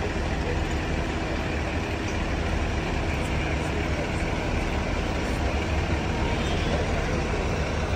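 Steady low rumble of idling vehicle engines with general street noise, even in level throughout.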